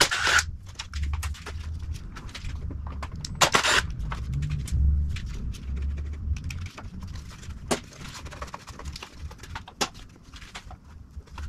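A cordless drill-driver runs in two short bursts, at the start and about three and a half seconds in, taking out the motorcycle windshield's screws. Between and after the bursts come scattered clicks and knocks of plastic trim and parts being handled.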